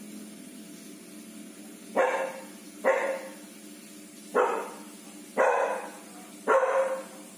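Dog barking in single loud barks, five of them about a second apart starting two seconds in: alert barking at something beyond the front gate.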